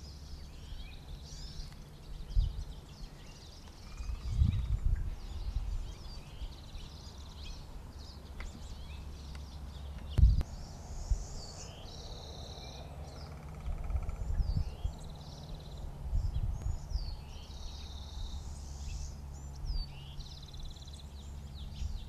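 Birds chirping in many short, high calls over a steady low hum, with a few dull low thumps, the loudest about ten seconds in.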